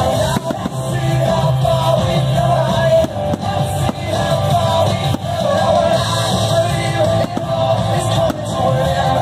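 Loud rock music with a singing voice, playing steadily.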